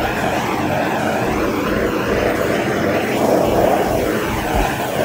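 A power tool's motor running with a steady drone, its pitch wavering up and down.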